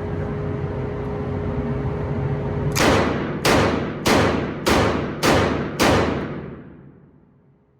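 Smith & Wesson Governor revolver firing six .410 rifled slugs in quick succession, about 0.6 s apart, each shot echoing. A steady hum is heard before the shots.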